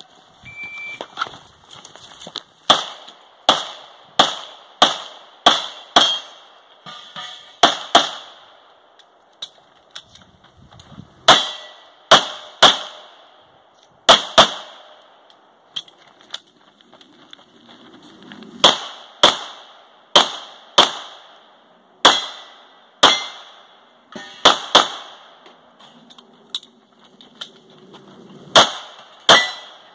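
Pistol gunfire from a Grand Power X-Calibur during a timed stage: a short shot-timer beep about half a second in, then dozens of quick shots, mostly in close pairs, in several strings with short pauses between them.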